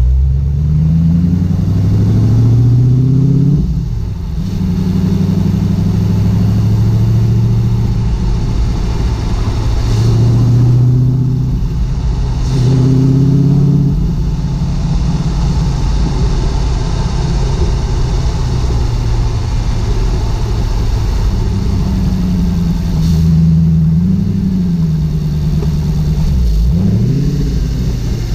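Porsche 986 Boxster with a swapped-in V8 engine, driven on the road: the engine note climbs and drops several times as it accelerates and shifts, holding steady in between. The engine is uncovered and far too loud.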